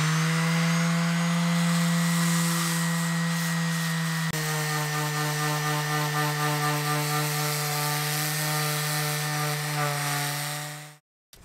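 Electric random orbital sander running steadily, a hum with a hiss of abrasive on the surface, sanding back thickened-epoxy filler in gouged gelcoat on a fibreglass deck. Its tone shifts slightly about four seconds in, and it stops abruptly near the end.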